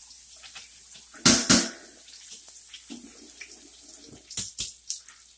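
Smoked sausage halves and sausage patties sizzling in a skillet, a steady high hiss, with two loud knocks about a second in and a few lighter clicks near the end.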